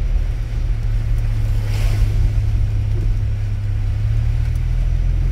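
Steady engine and road drone heard from inside a moving car, with a brief hiss about two seconds in.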